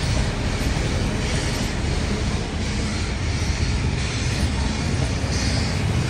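Heritage passenger carriages rolling past close by: a steady rumble of steel wheels on the rails, with a higher hiss that swells and fades as the carriages go by.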